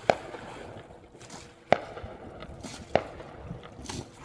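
Fireworks going off: three sharp bangs, roughly a second and a half apart, each trailing off in a short echo.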